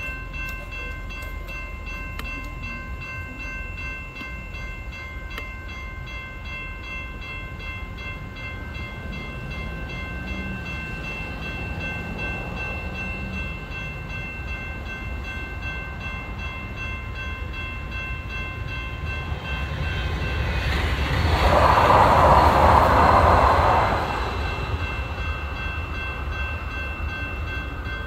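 Grade crossing warning bell ringing steadily and evenly as a train approaches and passes. The train grows louder and is loudest for about three seconds near the end, then falls away while the bell keeps ringing.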